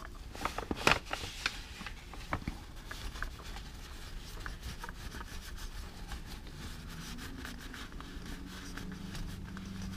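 Gloved hands and a shop towel rubbing and wiping under a motorcycle engine, with a few sharp clicks and knocks in the first couple of seconds as parts are handled and threaded in by hand.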